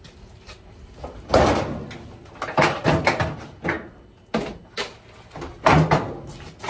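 A GE/Hotpoint clothes dryer's front panel clanking and knocking as it is lifted off its hooks and swung away from the cabinet: a string of separate knocks and clatters, several of them loud.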